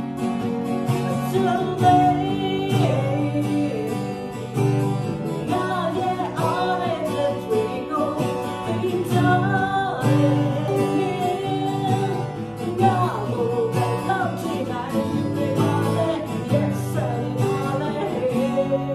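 A woman singing a Burmese ballad accompanied by two acoustic guitars, one steel-string and one nylon-string classical.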